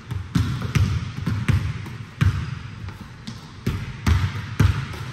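Basketballs bouncing on a hardwood gym court: a run of irregular thuds, several a second, with more than one ball going at once.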